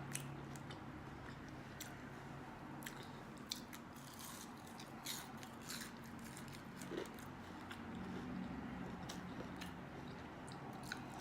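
Close-up eating sounds: chewing with irregular small crunches and wet clicks, the sound of fried wings and onion rings being bitten and chewed.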